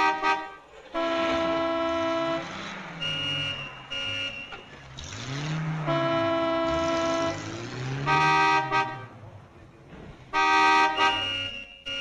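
Several car horns honking in long blasts, on and off, at different pitches and sometimes overlapping, with a low rising-and-falling engine-like tone beneath.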